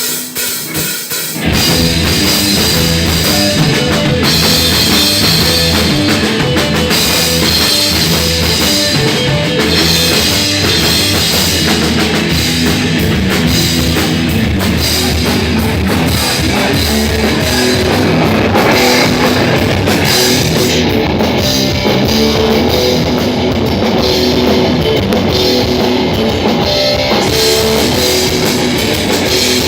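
Rock band playing loud live, with a drum kit and electric guitar. The full band comes in about a second and a half in.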